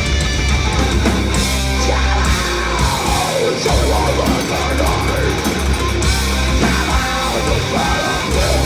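Heavy metal band playing live: distorted guitars over bass and drums. The low end drops out briefly about three seconds in, then the full band comes back.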